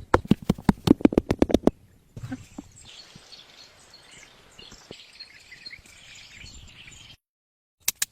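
A rapid run of sharp strikes, about eight a second, for the first second and a half, probably from woodworking. It gives way to birds chirping faintly, which cut off abruptly near the end.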